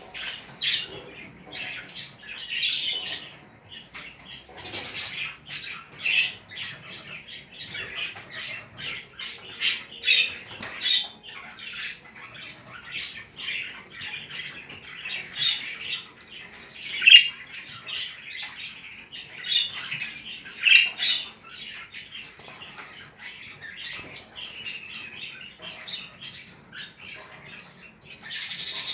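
Several budgerigars chattering: a continuous stream of short, high chirps and warbles, with louder sharp squawks scattered through.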